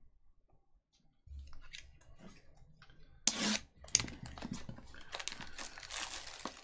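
Plastic shrink-wrap being torn and peeled off a sealed cardboard trading-card box, a dull knock from the box being handled, then loud crinkling and crackling from about three seconds in.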